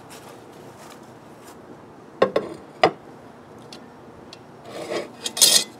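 Cast iron Dutch oven being handled and set down: two sharp knocks about two seconds in, then a rasping scrape near the end, the loudest part.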